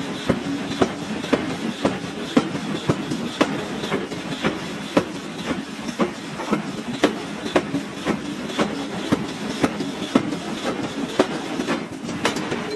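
Forging hammer striking in a steady rhythm, about two sharp metal blows a second, over continuous shop machinery noise.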